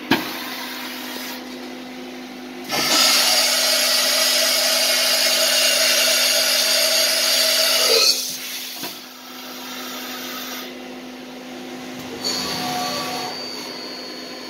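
Mazak VTC-20B vertical machining center running a program dry, with no cutting: a steady machine hum, a much louder whirring spell from about three to eight seconds in that cuts off, then a second, smaller rise with a high whine near the end.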